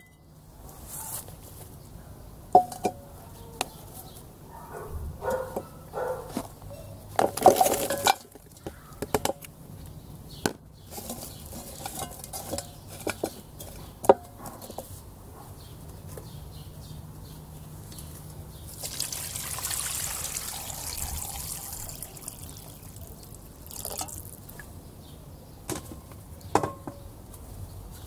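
Bones and pieces of meat dropped one at a time into a cast-iron pot, knocking against it and each other, then a few seconds of water poured in over them about two-thirds of the way through, with a couple more clunks near the end.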